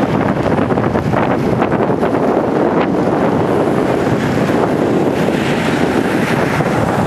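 Loud, steady wind noise buffeting the microphone of a camera carried on a moving bicycle.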